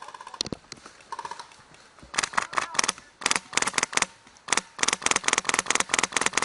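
Airsoft rifle firing on full auto: several rapid bursts of sharp cracks, starting about two seconds in, with the longest burst near the end.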